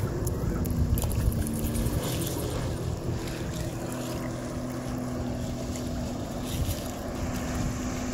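Personal watercraft engine running steadily as it drives a flyboard's water jet, heard across open water, with wind buffeting the microphone.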